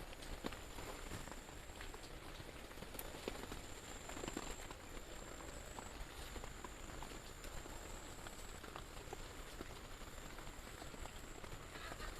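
Light rain falling: a soft, even hiss with scattered drips and ticks, and a faint steady high-pitched whine above it.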